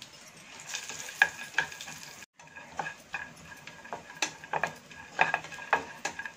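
A wooden spatula stirring and scraping chopped cashews frying in ghee in a nonstick pan, with a light sizzle under the strokes. The sound cuts out for a moment a little over two seconds in.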